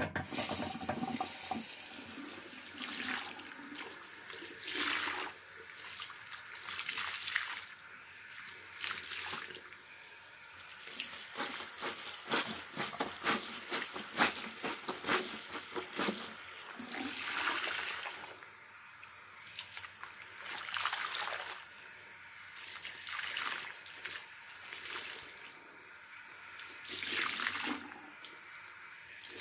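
A soaked sponge full of washing liquid squeezed again and again, soapy water gushing out in wet surges every few seconds.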